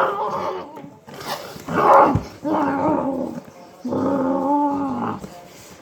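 A child imitating a dog, making three drawn-out dog-like vocal noises, the last one the longest.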